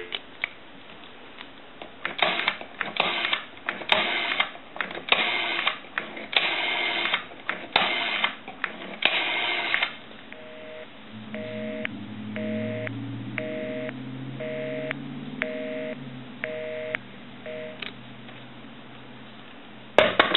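Rotary dial of a Northern Electric Galion telephone being wound and let go for several digits, each return sending a burst of clicking. Then the line's busy signal follows: a two-tone beep switching on and off about every 0.7 s, about eleven times, over a low hum.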